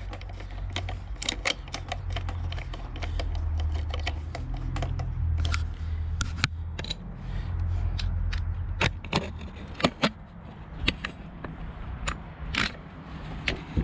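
Small metal lawnmower parts being handled and fitted by hand: irregular clicks, taps and light rattles of the recoil starter pieces and housing. A low rumble sits under them for the first nine seconds or so.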